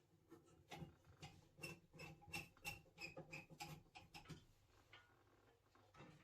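Faint, irregular light clicks and taps, a few a second, stopping after about four seconds.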